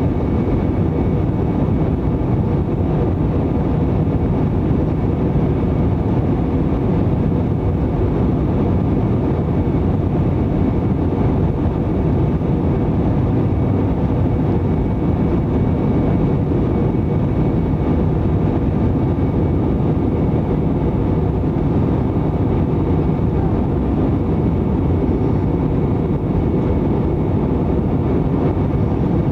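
Steady cabin noise of an Airbus A321 on descent, heard from a window seat over the wing: a constant rush of engine and airflow with a faint steady whine.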